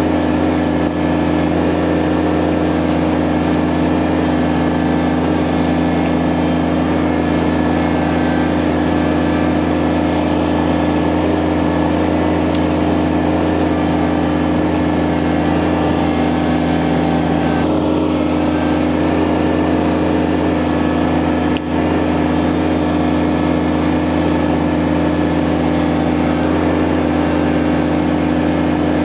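Kubota BX23S compact tractor's three-cylinder diesel engine running at a steady speed while the loader grapple works.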